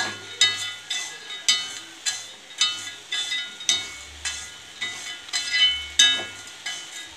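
A metal spoon scraping and clinking against a heavy iron kadai while stirring peanuts through hot rock salt, with the pan ringing briefly after each knock, about two a second.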